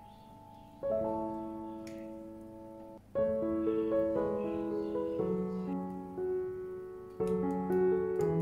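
Background piano music: gentle chords and melody notes, with fresh chords struck about a second in, about three seconds in and near the end.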